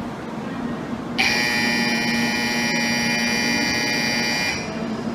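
Station platform departure buzzer sounding one steady, continuous buzz for about three seconds, starting about a second in and cutting off sharply, signalling that a train's doors are about to close. A steady low hum runs beneath it.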